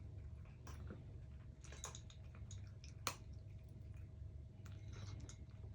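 Two Somali cats eating from their bowls: faint chewing with scattered small clicks.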